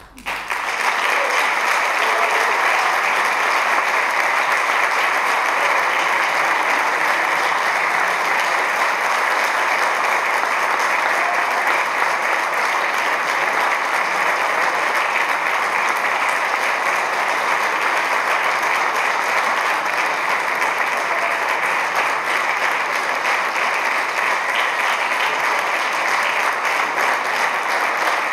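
Audience applause breaking out as the last note dies away, then dense, steady clapping.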